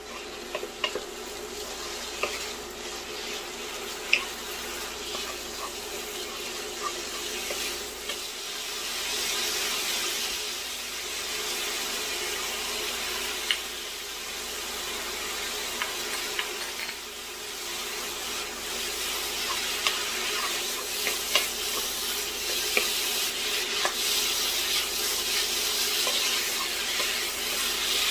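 Ground chicken sizzling in a nonstick frying pan while a wooden spoon stirs and scrapes through it, with scattered sharp clicks of the spoon against the pan. The sizzle swells twice, about a third of the way in and again near the end.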